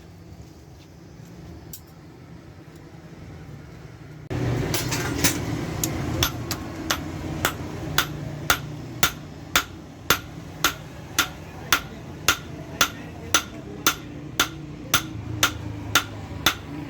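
A blacksmith's hammer striking metal in steady, evenly paced blows, about two a second. The blows begin about five seconds in, just after a sudden rise in the background din.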